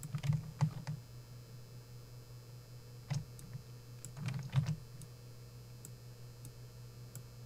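Faint scattered clicks from a computer mouse and keyboard, in small clusters in the first second, about three seconds in, and around four to four and a half seconds in, over a low steady hum.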